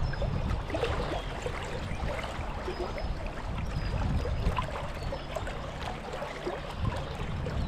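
Steady rush and ripple of a shallow river's current, with a low rumble underneath.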